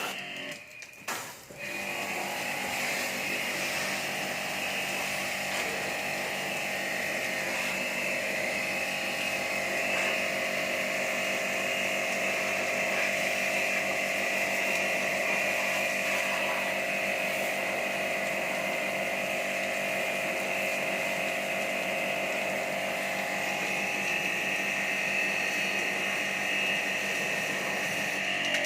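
A small electric motor running steadily with a high whine, starting about two seconds in and cutting off suddenly near the end.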